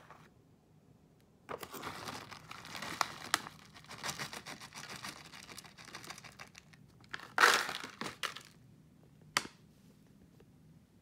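Plastic trail-mix pouch crinkling and rustling as nuts are shaken out of it onto yogurt, with many small clicks among the rustle. The loudest crinkle comes about seven and a half seconds in, followed by a single short sharp tap.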